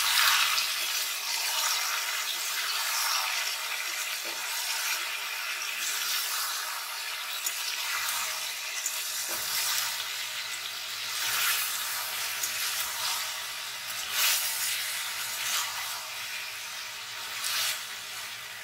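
Potatoes, onions, green chillies and freshly added tomato wedges sizzling in hot oil in a karahi while a spatula stirs and turns them. The hiss swells with each stroke of the spatula.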